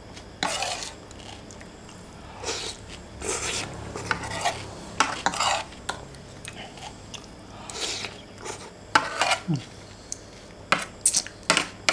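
Metal spoon and fork scraping and clinking on a ceramic plate while fried instant noodles are gathered and scooped: short scrapes, with a few sharp clinks in the last few seconds.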